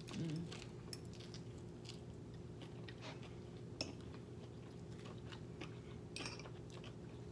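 Close-miked chewing of a lettuce-wrapped bite of boiled pork belly, soft and wet, with a few short crisp crunches and clicks.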